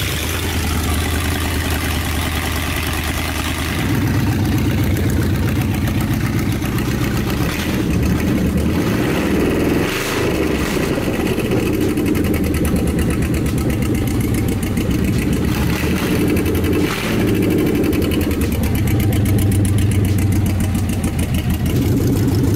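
Ford Gen 1 Coyote 5.0 L V8 running steadily just after its first test start, with a brief change in engine speed about ten seconds in. The salvage engine runs smoothly, with no rod knock.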